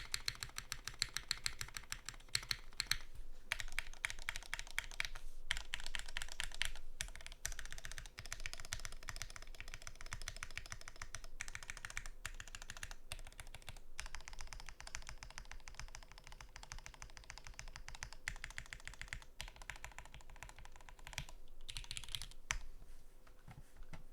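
Continuous typing on a plateless custom mechanical keyboard fitted with lubed Gateron X linear switches and GMK doubleshot ABS keycaps: a steady stream of keystrokes broken by a few short pauses.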